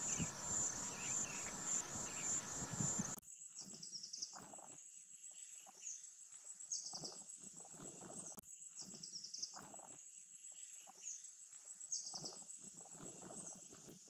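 Outdoor ambience of insects trilling steadily at a high pitch. There is a low rumble for the first three seconds. After a sudden change about three seconds in, the ambience is quieter, with short high chirping pulses roughly every second or so and faint rustling.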